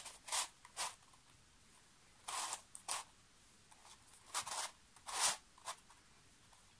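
Large 3D-printed plastic twisty puzzle being turned by hand: a string of short scrapes as its pieces slide against each other, with two longer turns about two and a half and five seconds in.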